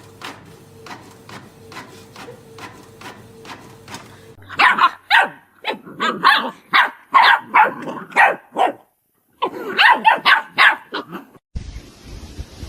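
A dog barking in fast runs of loud, short barks, about two a second, with a brief pause between two runs. Faint, regular ticking comes before the barking.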